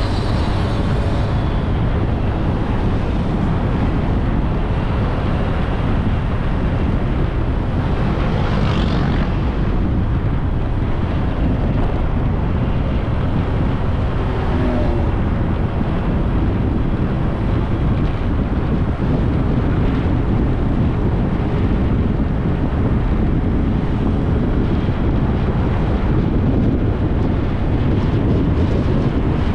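Wind buffeting the microphone of a moving motorbike, over steady engine and road noise. A brief, louder hiss swells and fades about nine seconds in, like a passing vehicle.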